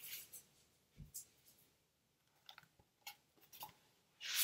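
Faint handling of a large picture book: a short paper rustle at the start, a soft thump about a second in, a few scattered light clicks, and another short rush of paper noise near the end.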